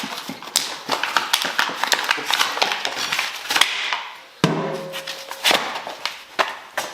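A quick, irregular run of sharp taps and knocks, several a second, with music-like sound among them.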